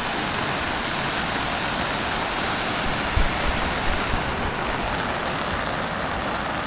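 Heavy rain and rushing floodwater making a steady, even hiss, with a few brief low thumps about three and four seconds in.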